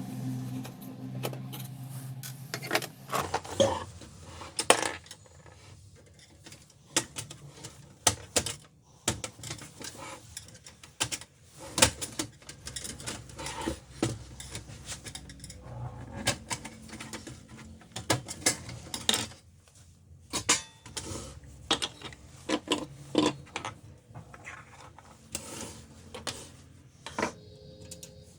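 A Canon LBP 2900 laser printer's motor hum stops about three seconds in. It is followed by scattered, irregular sharp metallic clicks and clinks of small metal parts being handled.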